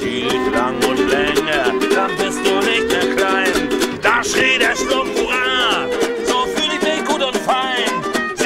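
Live acoustic music: a violin bowing a melody over a small nylon-string guitar being strummed, with a man singing along.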